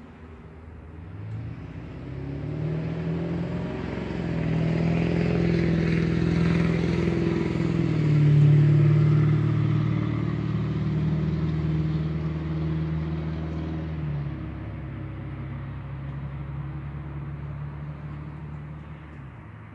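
Engine of a passing vehicle: a steady pitched hum that swells over several seconds, is loudest about eight seconds in, then slowly fades away.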